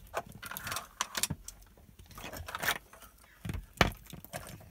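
Small plastic toys being handled and knocked on a wooden floor: irregular clicks and taps with faint rustling, the sharpest knock a little under four seconds in.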